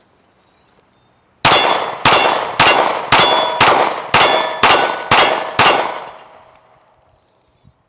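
Smith & Wesson Equalizer 9mm pistol firing nine rapid shots, about two a second, each with a metallic ringing clang; the ring fades out a second or so after the last shot.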